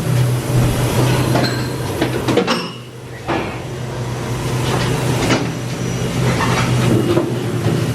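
Steady low machinery hum with scattered clicks and knocks over it. The level dips briefly about three seconds in.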